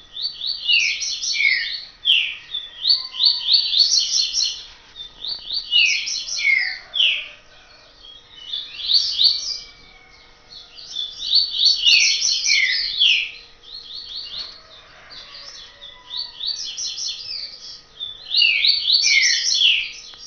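A songbird singing the same phrase over and over, every two to three seconds: a quick burst of high notes, then two or three falling slurs.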